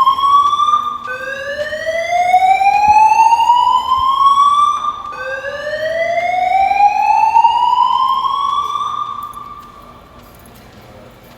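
Building fire alarm's voice-evacuation system sounding its whoop tone: a loud siren-like note that rises in pitch over about four seconds and starts again, three sweeps, then stops near the end.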